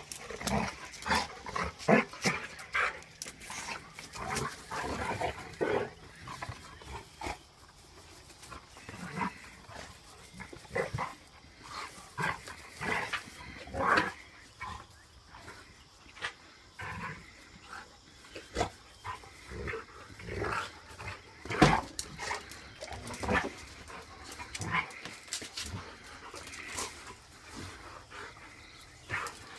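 A Rottweiler and a puppy play-fighting: short, irregular bursts of growling with an occasional bark, quieter stretches between.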